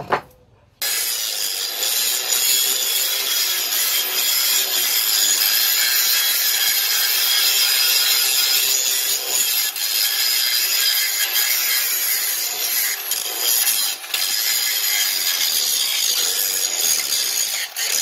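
Electric angle grinder with an abrasive disc grinding rust off a steel axe head: a loud, steady, hissing grind of disc on metal that starts abruptly about a second in, with a couple of brief dips near the end.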